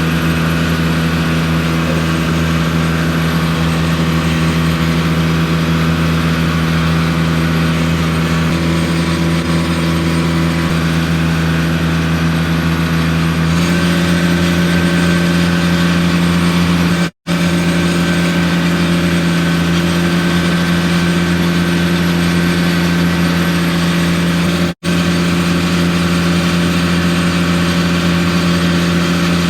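An engine running steadily at constant speed, its pitch stepping up slightly about halfway through. The sound cuts out completely for an instant twice.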